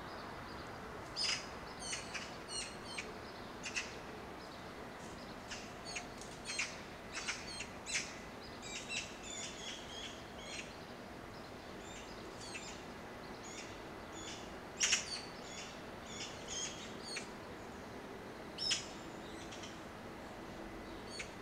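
Eurasian magpies calling: short, harsh, grating "pkia" and chattering "pkiakia" calls mixed with softer "reeh" notes, in irregular clusters. The loudest calls come about fifteen and nineteen seconds in.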